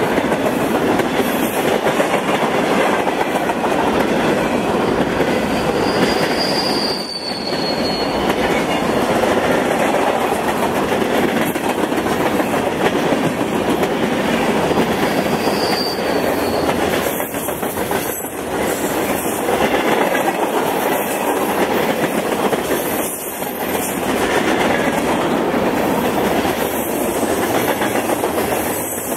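Freight cars rolling past close by: the steady noise of steel wheels running on rail, with a brief faint wheel squeal about six to seven seconds in and again around sixteen seconds.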